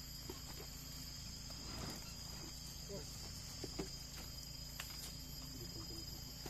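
Steady high-pitched chorus of insects, with a few faint knocks.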